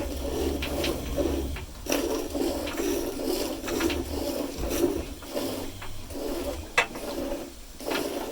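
Hand milking of a cow: quick rhythmic strokes, about two a second, of milk squirting into a pail.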